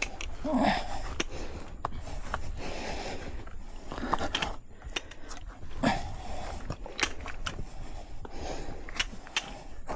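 Panting breaths in irregular puffs, with a few sharp clicks over a steady low rumble.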